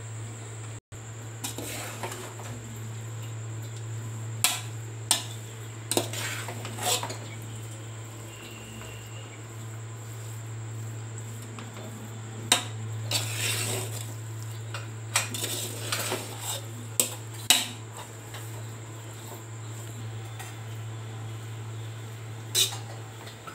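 Steel perforated skimmer ladle stirring and tossing noodles in a large aluminium pot. Its edge clanks sharply against the pot at irregular moments, with short stretches of scraping in between, over a steady low hum.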